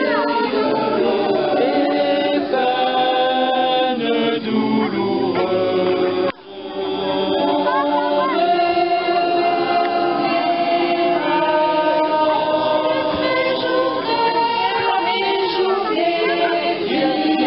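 A mixed choir of men's and women's voices singing unaccompanied, holding long chords, with a short break about six seconds in.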